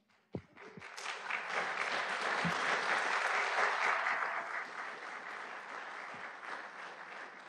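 Audience applauding: the clapping builds up about a second in, is strongest for the next few seconds, then slowly dies away.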